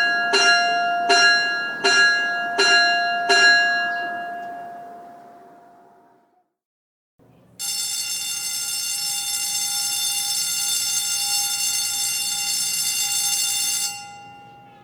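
A school bell struck about six times in an even rhythm, its ring dying away over a few seconds. After a pause, an electric school bell rings steadily for about six seconds and stops.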